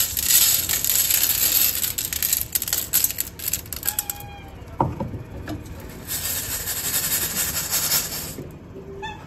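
Rattling and clicking over a hiss for about four seconds, then a second hissy stretch a couple of seconds later, with brief faint high-pitched calls in between.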